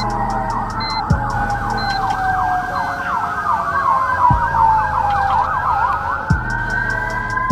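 Emergency vehicle siren, a slow rising and falling wail overlapping a fast up-and-down yelp, over a steady thumping beat.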